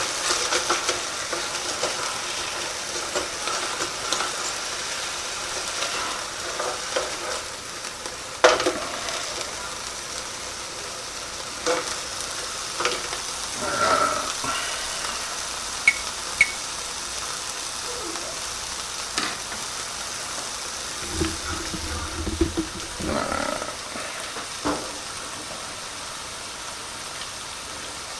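Venison burger patties frying in a pan, sizzling steadily, with a few sharp clicks scattered through.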